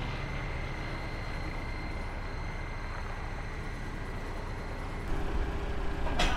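A vehicle engine idling steadily, with a faint high whine over it. About five seconds in it gets louder, with a deeper hum. A sharp click comes near the end.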